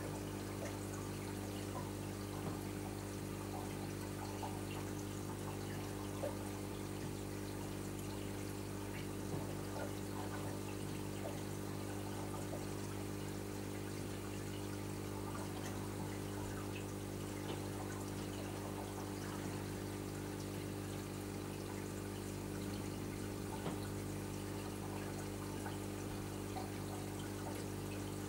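Reef aquarium running: a steady hum from its circulation pumps, with water trickling and faint small pops throughout.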